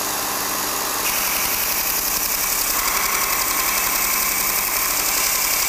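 Robert Sorby Pro Edge belt sharpener running steadily while the end of a forged-steel chisel is ground on the abrasive belt, throwing sparks. The steel-on-belt grinding sound comes in about a second in and holds, squaring the chisel tip by hand.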